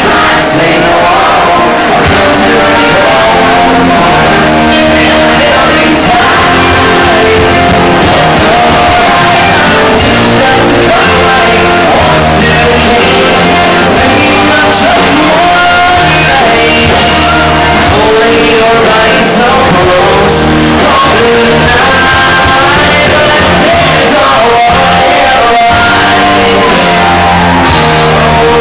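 Live country band playing loud: a male lead singer over electric guitar, bass and drums, echoing in a large room.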